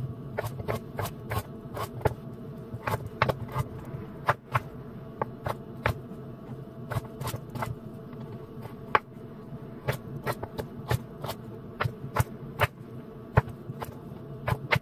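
Chef's knife slicing beets on a wooden cutting board, the blade knocking on the board with each cut, irregularly two or three times a second, over a steady low hum.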